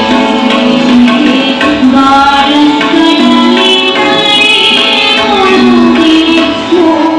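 A woman singing a melody with long held notes, accompanied by tabla.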